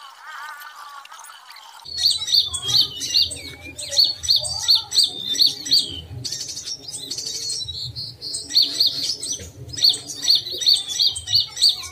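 Small songbirds calling: a rapid, evenly repeated high chirp about three times a second, with a long falling whistle twice. The chirping starts abruptly about two seconds in, after a fainter warble.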